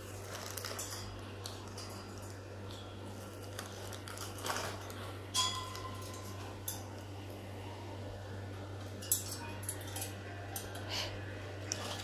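African grey parrot clambering on a wire cage, its claws and beak tapping and scraping the metal bars in scattered clicks, over a steady low hum.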